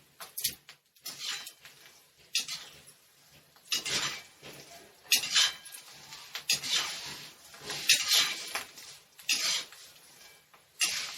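Metal strainer scraping and knocking against a metal frying pan (kadhai) in irregular strokes about once a second, as fried sabudana is scooped out of hot oil.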